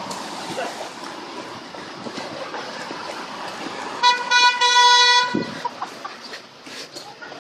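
A vehicle horn gives one steady, loud honk of about a second and a half, starting about four seconds in, over the hiss of street traffic.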